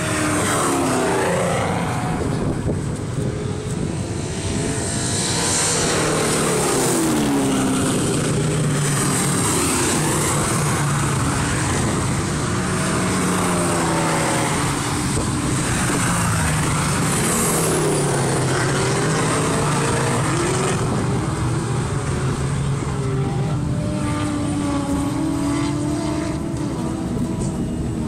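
Car engines revving hard as cars race past on a track straight, one after another. The engine pitch climbs through the gears and drops as each car goes by.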